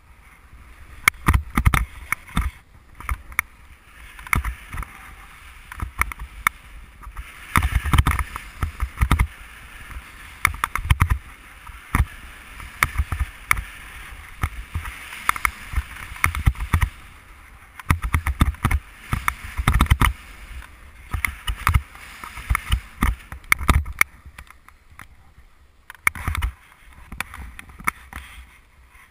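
Snowboard sliding and carving over snow: a scraping hiss that swells and fades with the turns, broken by many irregular knocks and thumps as the board chatters over bumps, with wind rumbling on the GoPro's microphone. It quiets in the last few seconds.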